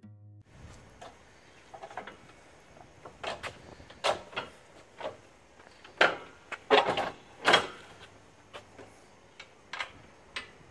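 Torklift Glowstep Revolution folding aluminium RV steps being handled on their mount: a latch clicking and the metal step sections clacking as they are moved. The clacks come singly and in quick clusters, loudest around the middle.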